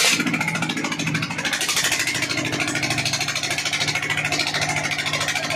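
Single-cylinder stationary diesel engine running steadily with a fast, even chugging beat. The engine has just been serviced with some of its internal parts replaced.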